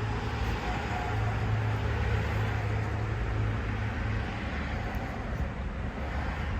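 Steady low hum under an even background noise, like a vehicle's engine running as heard from inside.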